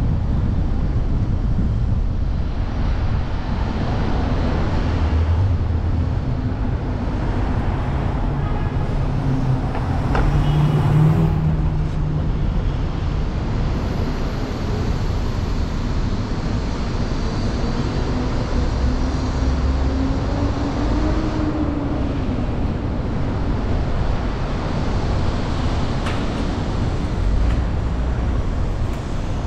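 Road and traffic noise from a car driving through city streets: a steady low rumble of tyres and engine. A louder vehicle swells past about ten seconds in, and another engine note climbs and falls a little past the middle.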